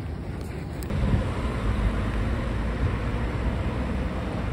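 Steady low rumble of a car driving, heard from inside the cabin, setting in about a second in after a quieter moment.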